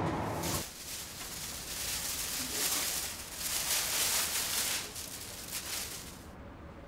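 A train's low rumble cuts off about half a second in, followed by several bouts of rustling from clothes and a plastic bag being handled, which stop near the end.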